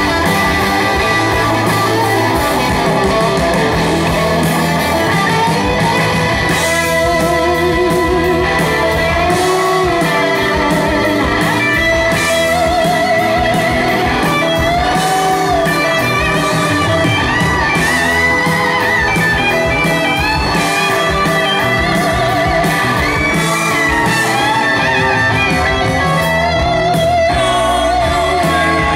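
A rock band playing live, with electric guitars to the fore over bass guitar and drums.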